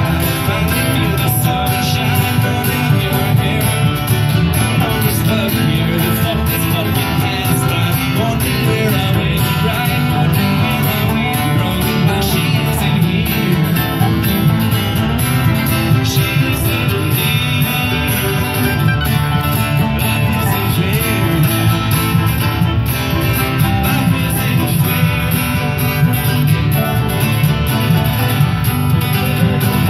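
Live acoustic folk band playing: fiddle, accordion, mandolin and strummed guitars over a steady beat.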